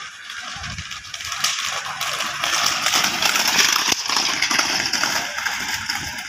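A pair of horses galloping on a paved road pulling a light two-wheeled racing cart: a fast, dense clatter of hooves and cart, with a rushing hiss. It rises to its loudest about three to four seconds in as they pass close, then eases.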